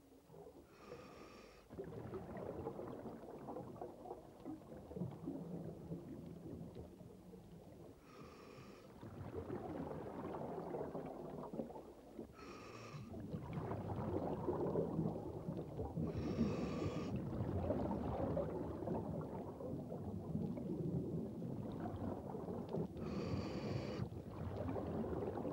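Scuba diver breathing through an open-circuit regulator underwater: five short hissing inhales every four to seven seconds, each followed by the low, rough burble of exhaled bubbles, which grows louder in the second half.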